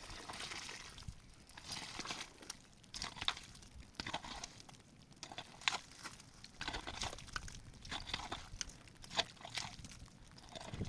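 Irregular short crunching and rustling noises, with no steady rhythm.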